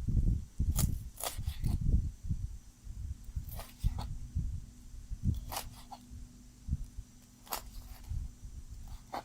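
Handling noises as portions are packed: irregular soft thumps with a few brief crisp crinkles, like plastic packaging being handled.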